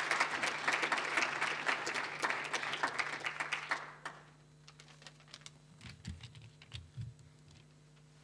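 Audience applauding, dying away about four seconds in. After it, faint rustles and a few soft low thumps as papers are handled at a lectern microphone.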